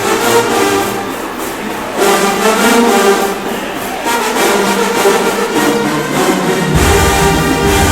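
Marching band brass playing loudly together, with a deep bass part joining in near the end.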